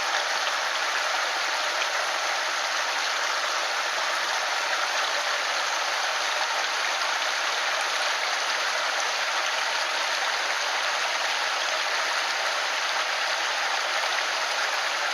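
Mountain stream water rushing steadily over rocks, an even hiss with no breaks.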